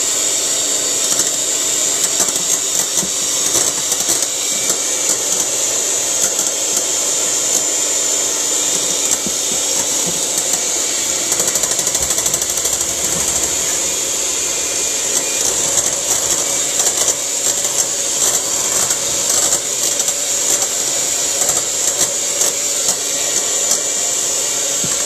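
Electric hand mixer running steadily at high speed, its beaters whipping eggs to a froth in a stainless steel bowl.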